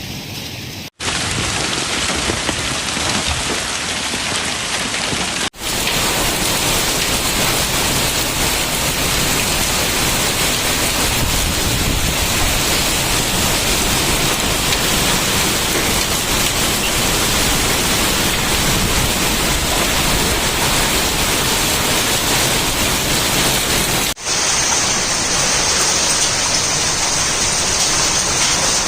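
Heavy downpour of rain and hail hammering down, a dense steady rush of noise. It changes abruptly three times as one take cuts to the next.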